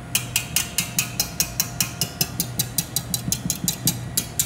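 Wire balloon whisk beating egg whites by hand in a stainless steel bowl, the wires clicking against the metal about five times a second in a steady rhythm. The whites are whipped to soft peaks.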